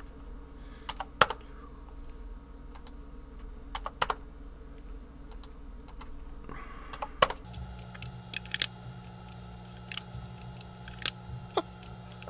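Computer keyboard keystrokes and clicks, scattered and irregular, some in quick pairs, over a steady low hum that shifts in pitch about seven seconds in.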